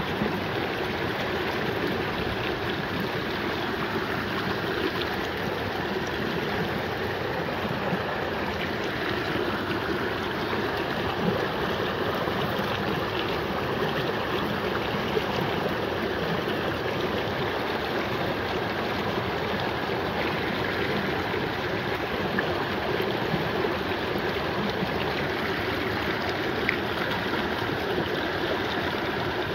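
Shallow glacier-runoff stream running steadily over a cobble bed, an even rushing of water with no let-up.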